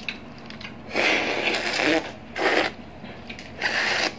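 Three noisy slurps of broth sucked from an opened balut (fertilized duck egg). The first lasts about a second and the other two are short.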